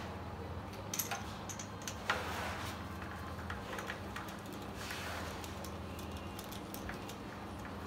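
Scattered light clicks and metal clinks of a hand tool and compression-tester hose fitting being worked at the cylinder head of a bare Audi 2.7 TDI V6 diesel engine, over a steady low hum.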